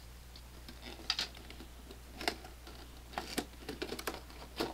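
Cardboard packaging of a Pokémon card box being handled and opened: a string of irregular light clicks and rustles.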